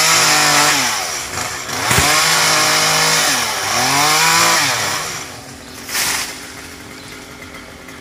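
Two-stroke chainsaw sawing a coconut palm trunk. It revs up three times, its pitch rising and falling between, then drops back to idle about five seconds in. A sharp knock comes about a second later.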